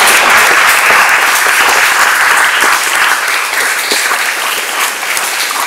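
Audience applauding, loudest at the start and easing off slightly.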